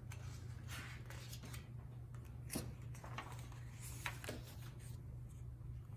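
A page of a paper picture book being turned: a short papery rustle about a second in, then a couple of light taps on the book, over a steady low hum.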